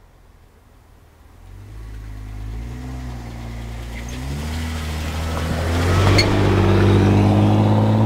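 Cars driving over a railway level crossing, their engines growing steadily louder as they approach. The engine pitch rises and drops back about four seconds in. A short knock sounds about six seconds in.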